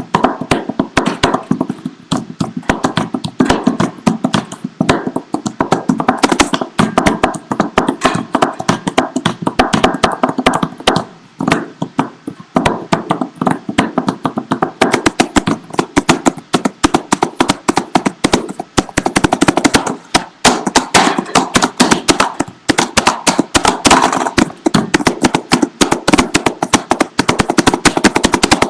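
Desk percussion: a desk tapped and beaten by hand and with small objects in fast, dense rhythmic patterns of sharp knocks and clicks, with a brief let-up about eleven seconds in.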